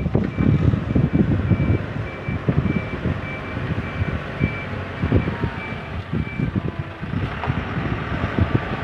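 JCB 3CX backhoe loader reversing: its reversing alarm beeps about twice a second over the running diesel engine and repeated knocks, and the beeping stops about two-thirds of the way through.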